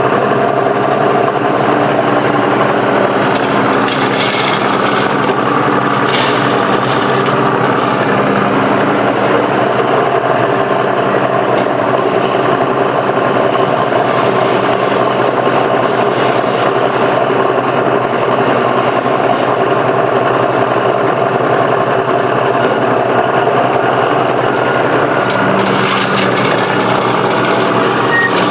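Komatsu PC200 excavator's diesel engine running steadily under working load. Short rasping scrapes come about four to six seconds in and again near the end.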